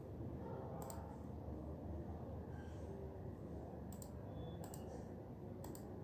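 A few separate clicks of computer keyboard keys: one about a second in and three more close together near the end, over a steady low room hum.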